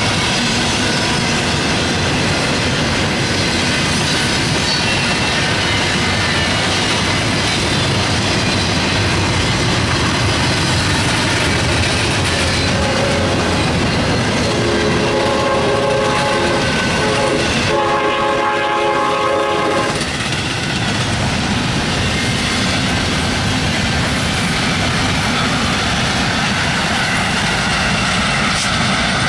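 Double-stack container train rolling past, with steady wheel and rail noise. About halfway through, a locomotive air horn sounds a chord for about seven seconds.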